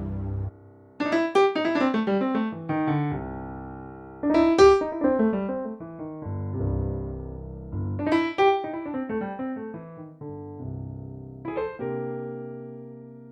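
A digital workstation keyboard's piano preset playing the same short phrase of falling notes three times over held chords, then one more chord near the end.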